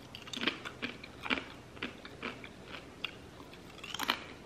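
Crunchy chewing of a dehydrated chicken breast meat crisp: short crisp crunches, about two a second.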